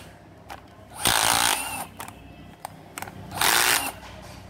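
Ryobi 9.6 V cordless drill/driver run briefly twice, about a second in and again near the end, its motor spinning up and winding down with a whine. A few sharp clicks come between the two runs.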